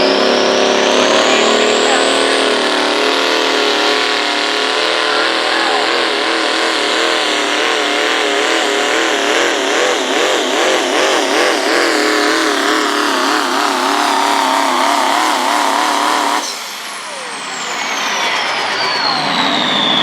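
Turbocharged diesel pickup truck at full throttle pulling a sled, the engine pitch wavering as it works, with a high turbo whine rising at the start. About sixteen seconds in the engine suddenly drops off, and a high turbo whistle falls in pitch as it winds down.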